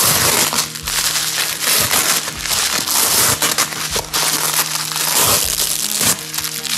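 Packaging being unwrapped by hand: continuous crinkling and crackling close to the microphone.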